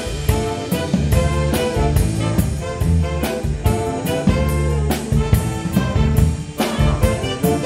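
Jazz big band playing a swing number: saxophone, trumpet and trombone sections sounding chords over drum kit and electric bass.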